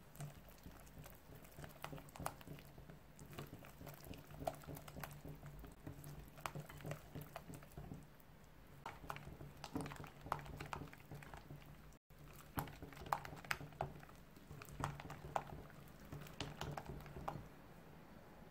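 Wire whisk stirring thick egg-yolk and flour batter for a chiffon cake in a glass bowl: irregular wet squishing and light clicks of the wires against the glass. The stirring stops shortly before the end as the whisk is lifted out.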